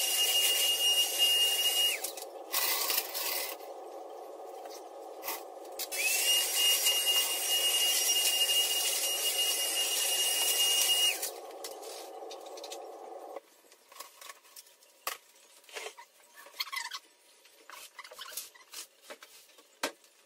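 A small electric motor runs with a steady high whine over a hiss. It stops about two seconds in, spins up again about six seconds in, and winds down about eleven seconds in. A lower steady hum carries on until about thirteen seconds, and after that there are only scattered light knocks and clatter.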